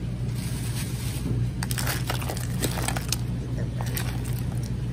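Grocery-store background: a steady low hum with scattered light clicks and crinkles, and faint voices.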